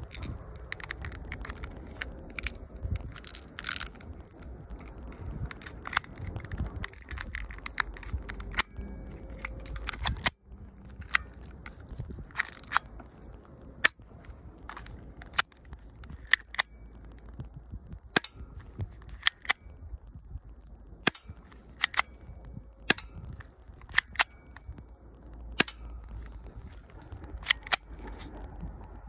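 Academy Colt 25 airsoft pistol being fired again and again, a sharp snap every second or so.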